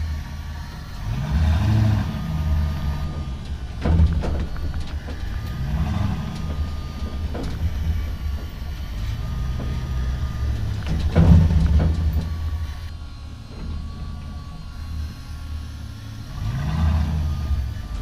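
An engine running with a steady low hum, rising and falling in pitch about six times as it revs up and eases off, with a few sharp knocks along the way.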